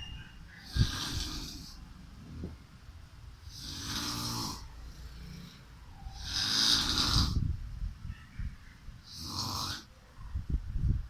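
Snoring: four snores about three seconds apart, the third the loudest.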